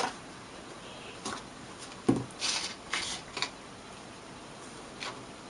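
Cardstock being handled and folded along its score lines: a few short paper rustles, with a soft knock on the work surface about two seconds in.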